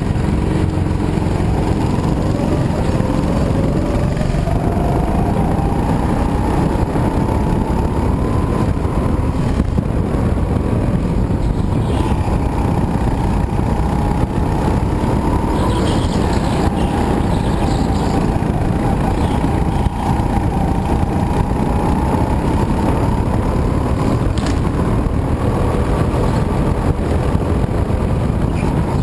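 Go-kart heard from on board while lapping: a continuous engine note that rises and falls in pitch as the kart speeds up and slows for corners, over a heavy low rumble.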